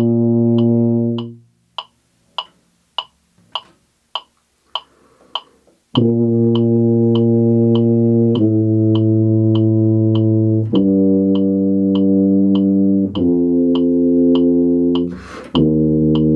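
Tuba playing long held notes, each lasting four metronome beats and changing pitch from note to note, over a metronome clicking about 100 beats a minute. After the first note the tuba rests for about four seconds, leaving only the clicks and an audible breath. A quick breath comes just before the last note.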